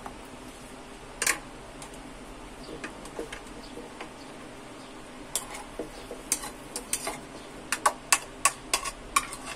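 Spoon clicking against a bowl and mango cubes dropping into a plastic blender jar: one sharp click about a second in, then a quick run of clicks and taps in the second half.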